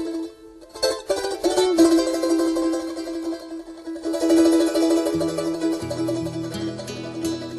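Andean music led by a bright plucked string instrument, with low bass notes coming in about five seconds in.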